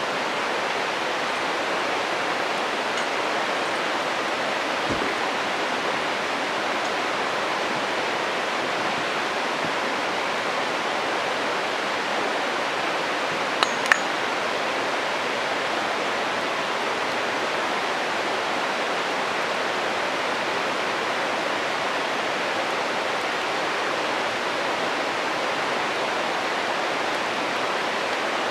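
Steady rushing of a stream, with two sharp pops of burning wood in a campfire about halfway through, close together.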